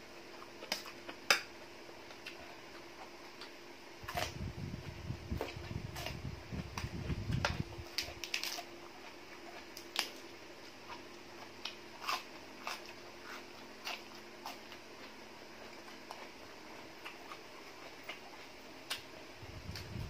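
Eating sounds: chewing and crunching of crisp fresh lettuce and glass-noodle salad, with scattered sharp clicks and a louder, lower stretch from about four to seven and a half seconds in.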